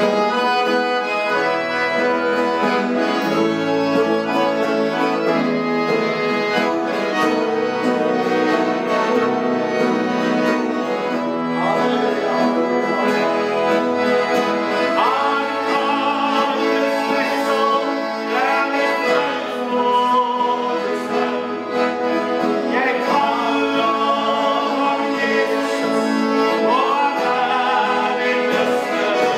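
Piano accordion and acoustic guitar playing a gospel song: an instrumental passage of held accordion chords, then men's voices singing over it in the second half, two voices together near the end.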